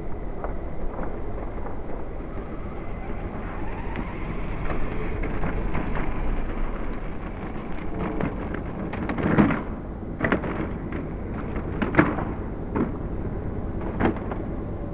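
HobbyKing HKM-390 1/8-scale brushless electric RC motorcycles lapping a track: a faint motor whine under a steady rumble of wind on the microphone. Several sharp knocks come in the second half.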